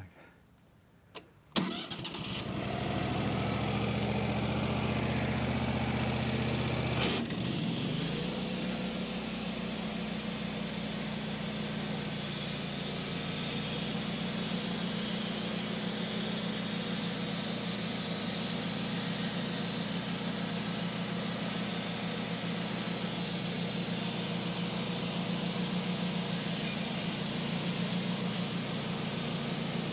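Wood-Mizer LT15 Wide portable bandsaw mill's engine starting about a second and a half in and idling. About seven seconds in it speeds up and the band blade engages, then it runs steadily with a hiss as the blade cuts through the log.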